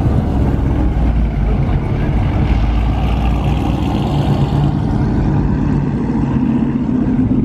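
A car engine running nearby with a steady low exhaust rumble.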